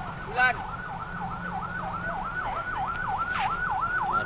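Police car siren in its fast yelp mode: a tone sweeping up and down about four times a second. A short shout cuts in about half a second in.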